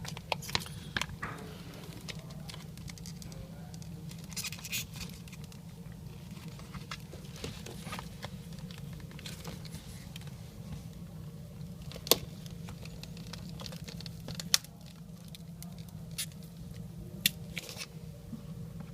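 A business card being slid under a tablet's glass digitizer, with light scraping and the crackle of adhesive peeling away, broken by scattered sharp clicks and ticks as the glass and frame are handled. A steady low hum runs underneath.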